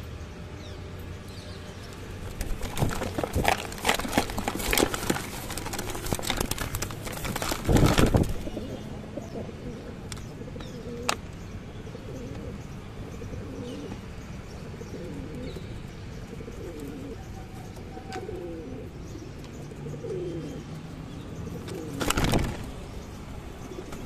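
Pigeons cooing in a run of low, rising-and-falling calls in the second half, with loud scuffling, wing flutters and knocks from birds jostling right against the microphone in the first third and again briefly near the end.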